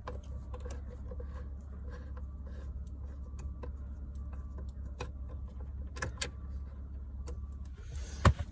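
Scattered light clicks and taps of hands and tools working on the plastic steering-column trim, with a few sharper ticks about five, six and eight seconds in, over a steady low hum.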